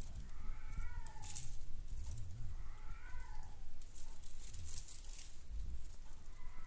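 Maine Coon kittens mewing: a short high mew about a second in, another about three seconds in, and a third starting at the very end, with light rustling between.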